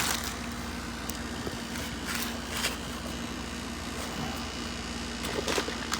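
Steady low background hum with a faint steady tone, and a few faint light clicks and rustles of handling.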